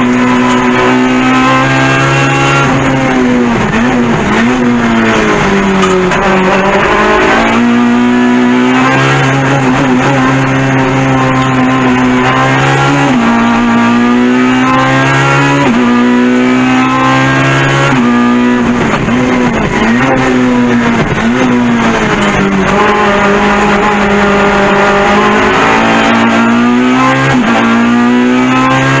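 Peugeot 106 GTI Evo II race car's engine heard from inside the cockpit at high revs under hard acceleration. Its pitch climbs and then drops sharply at each gear change, several times, with wavering dips in between.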